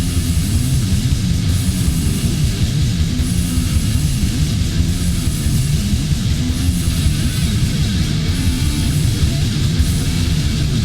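War metal: distorted electric guitars and drums in a dense, bass-heavy mix, with a high cymbal wash that swells about every second and a half.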